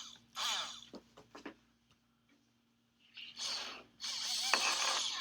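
Small DC gear motors of a hobby robot arm whirring in short runs: one near the start, another about three seconds in, and a longer run from about four seconds in, their whine gliding up and down in pitch as they start and stop.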